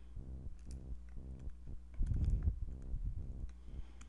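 Scattered faint clicks over a low electrical hum that pulses about four times a second, with a short, slightly louder rustle about two seconds in.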